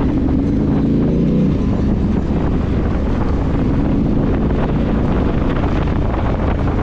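Yamaha Ténéré 700's parallel-twin engine running under way, with heavy wind rumble on the microphone; the engine note stands out clearly for the first second and a half, then sinks into the wind rumble.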